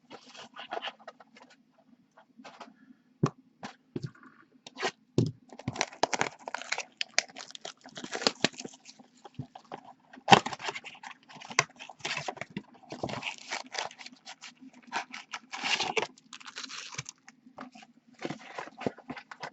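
Plastic wrapping and cardboard being torn, crinkled and scraped by hand as a retail blaster box of trading cards and its packs are opened: irregular crackling and rustling with sharp snaps, loudest about ten seconds in and again near sixteen seconds.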